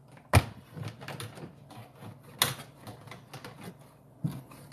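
Irregular clicks, taps and scrapes of a wire and its guide being pushed through the inside of a plastic kayak hull, snagging on the styrofoam. Two sharper knocks stand out, about a third of a second in and about two and a half seconds in.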